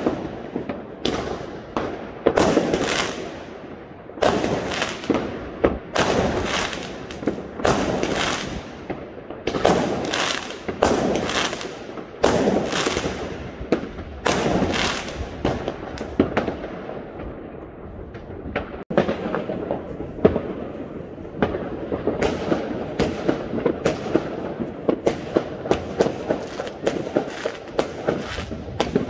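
Aerial fireworks going off: a dense, irregular series of bangs and crackles, many overlapping. After a brief dropout about two-thirds of the way through, the bangs come faster and smaller.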